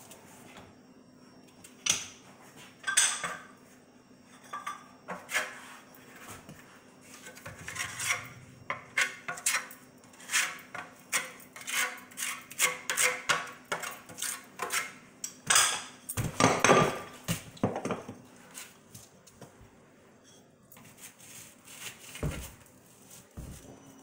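Ceramic wall tiles clinking and a metal trowel scraping against tile and thinset mortar, a long string of sharp clicks and scrapes that thins out about three-quarters of the way through.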